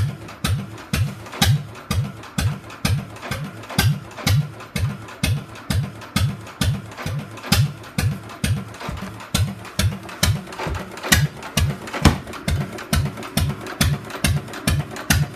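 Arrow engine on its first start attempt, turning over with an even, slow beat of low thumps and sharp clicks, about two and a half a second, with a few stronger strokes near the end.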